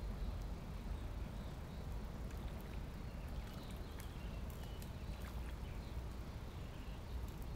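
Outdoor ambience: a steady low rumble with faint, scattered bird chirps and a few small clicks.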